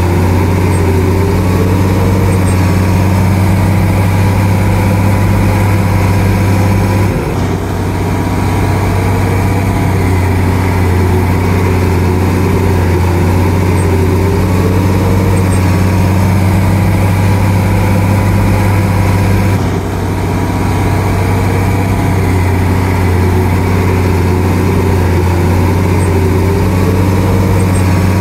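Shantui DH17C2 bulldozer's diesel engine running steadily while the dozer works, with a heavy low drone. Its level dips briefly twice, about 7 and 20 seconds in.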